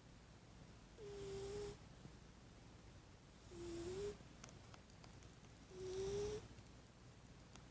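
Domestic cat snoring: three snores about two seconds apart, each a short breath with a whistling note in it.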